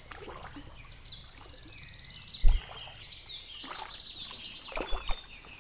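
Small birds singing in the bankside trees: a string of short high chirps and one fast trill, over faint outdoor hiss. A single short thump about halfway through is the loudest sound.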